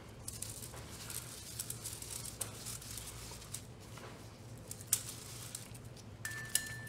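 Gloved fingers rubbing transmission fluid onto a manual-transmission main shaft, with scattered small clicks and taps of metal parts over a steady low hum. A faint, thin high tone starts near the end.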